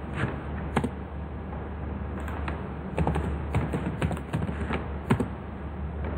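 Computer keyboard keys clicking in irregular runs of typing, over a steady low hum.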